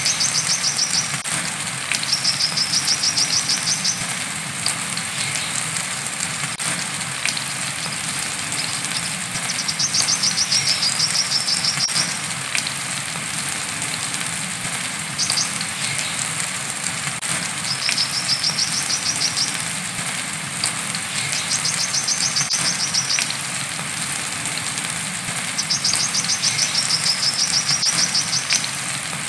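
Brown-throated sunbird (kolibri kelapa) singing its rapid chattering trill song ('besetan') in bouts of about two seconds, repeated every few seconds, over a steady hiss of rain.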